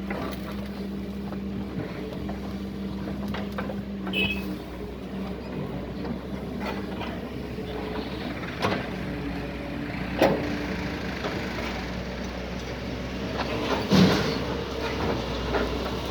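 Doosan DX140 excavator's diesel engine running steadily as it works, with a brief high squeal about four seconds in and several sharp knocks, the loudest near the end.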